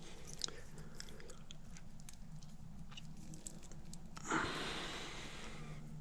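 Small clicks and handling noise from hand tools and insulated wire crimp terminals during electrical wiring work. About four seconds in there is a short scraping rustle. A low steady hum runs underneath.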